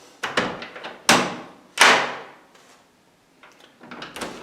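Old wooden door and its vintage latch being worked: about four sharp knocks in the first two seconds as the door is pushed to and the latch catches, then a few fainter clicks near the end. The fit is still a little tight at the strike plate.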